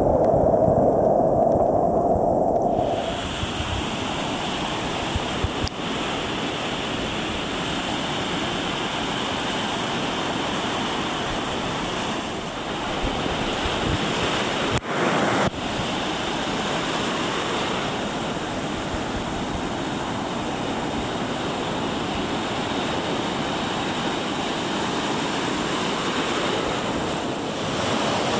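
Ocean surf breaking and washing steadily, with wind on the microphone. The sound changes about three seconds in, from a lower, duller noise to the brighter hiss of the surf, and there is one sharp click near the middle.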